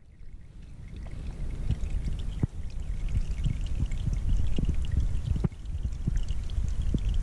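Rain falling on a still pond's surface, with many individual drops plopping close by over a steady low wash. It fades in over the first second or so.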